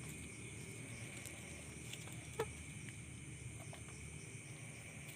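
Steady high drone of night insects such as crickets, with one short sharp sound a little over two seconds in.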